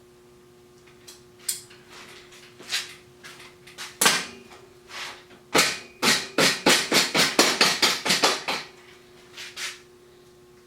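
Sharp knocks and clanks, building into a quick run of about a dozen strikes at roughly five a second, then a couple more near the end.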